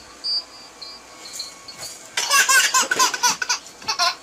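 Baby laughing: a quick run of high-pitched giggles that starts about halfway through.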